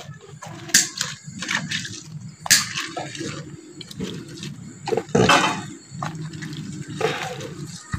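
Water sloshing and splashing in a kitchen vessel, broken by irregular knocks and clatter of utensils, with several sharper knocks about a second or two apart.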